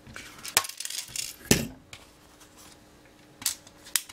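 Black plastic ZX Spectrum case and circuit board handled on a silicone mat as the board is lifted out and the case set aside: a few sharp clicks and knocks with light scraping, the loudest about a second and a half in.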